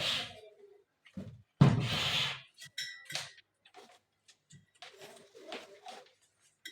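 Handling noises from a homemade amplifier as a pen drive is plugged in: knocks and rustling, the loudest a sharp knock about a second and a half in, with a short high tone near the middle.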